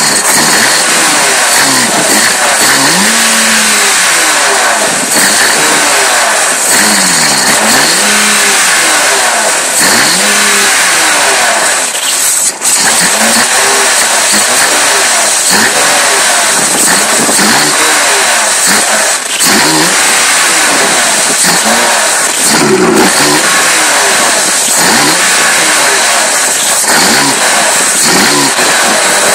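BMW E36 M3 Evo's 3.2-litre straight-six idling roughly, its pitch wavering up and down over and over, about once a second: the revs hunting at idle, the rough idle the car has.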